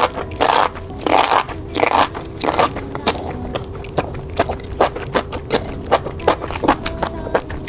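Close-miked eating of spicy seafood: wet biting and chewing, a quick run of crunches and sticky clicks, with the loudest crunches in the first few seconds.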